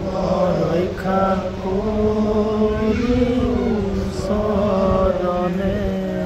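A group of men chanting a prayer together in long held notes that glide slowly up and down, as at an Assamese namghar service.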